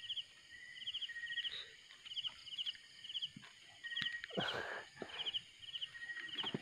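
Night chorus in a field: short chirps of a few rapid pulses repeat every half second or so, with short steady high notes between them. About four and a half seconds in comes a brief louder rustling scuffle as the hooked catfish is handled.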